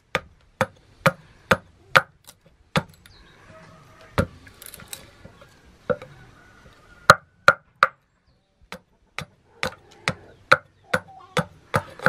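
Hammer striking metal in a series of sharp, ringing blows, two or three a second, with a couple of short pauses.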